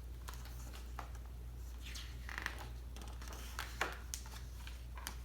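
Soft paper rustles and a few light clicks as a picture-book page is handled and turned, over a steady low hum.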